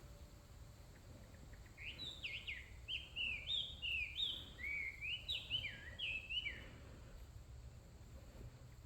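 A songbird singing a quick, varied run of sliding whistled notes that starts about two seconds in and lasts about five seconds, over a low steady rumble of outdoor background noise.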